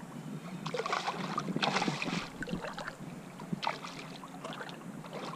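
Water splashing in irregular bursts as a hooked fish thrashes and swirls at the surface, with light wind on the microphone.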